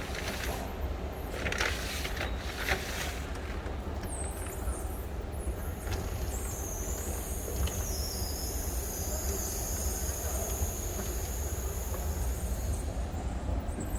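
Steady low rumble of station background noise, with a few sharp clicks and knocks in the first three seconds and a thin high squeal lasting about seven seconds from around six seconds in.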